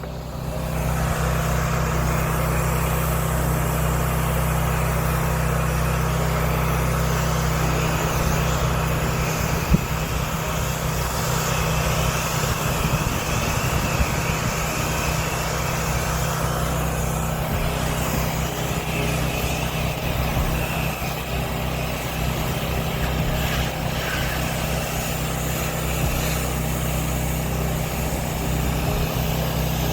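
Pressure-washing rig's engine running steadily at a constant speed, with an even hiss over the top.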